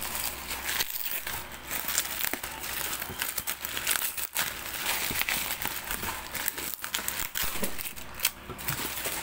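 Bubble wrap and plastic packaging crinkling and rustling as they are handled and pulled open by hand, with many small irregular crackles.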